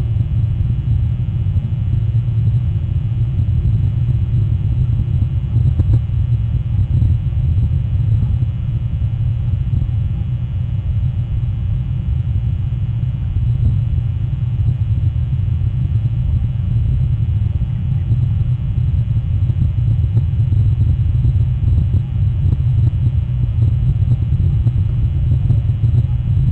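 Steady low rumble over a faint hiss on an outdoor wildlife camera's live audio feed, with nothing standing out from it.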